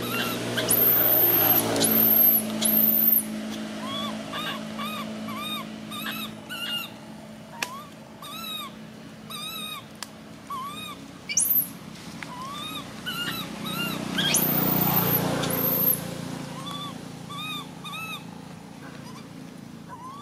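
Baby long-tailed macaque screaming, with shrill, very high screams in the first few seconds and again about three-quarters of the way through. Between them it gives a steady run of short, arching whimper calls, two or three a second.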